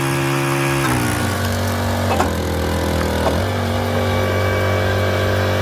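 Engine running steadily, its pitch dropping about a second in and rising a little past the middle, with a few faint cracks over it.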